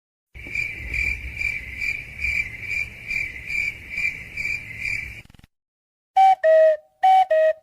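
Cricket chirping sound effect, the meme cue for an awkward silence: an even chirp about twice a second that cuts off after about five seconds. Near the end, a short two-note falling tone plays twice.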